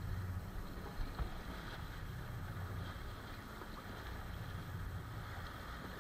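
Fishing boat's engine idling with a steady low rumble, over wind and water noise. A single knock comes about a second in.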